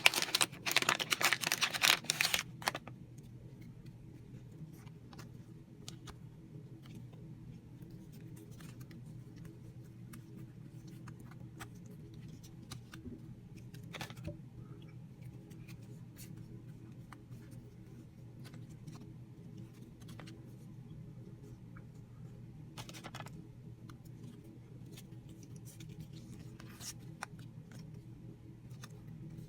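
A foil trading-card pack is torn open, loud crinkling for the first two or three seconds. Then the cards are handled one by one: faint scattered clicks and rustles over a steady low hum, with a few brief louder rustles.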